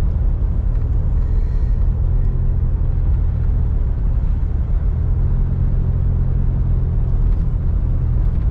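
Jeep driving along a paved road, heard from inside the vehicle: a steady, low engine and road noise.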